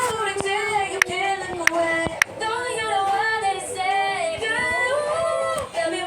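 Background pop music with a woman singing held, gliding notes, and a few sharp clicks scattered through it.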